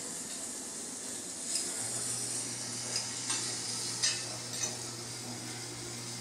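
A steady high hiss with scattered faint clicks, joined about two seconds in by a low steady hum.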